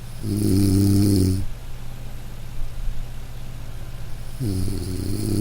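A person snoring loudly, close by: two long rasping snores about four seconds apart, each lasting over a second, over a steady low hum.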